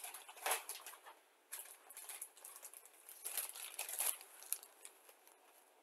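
Thin plastic bags holding model-kit parts crinkling and rustling as they are handled. The crinkling comes and goes irregularly, loudest about half a second in and again around three to four seconds in.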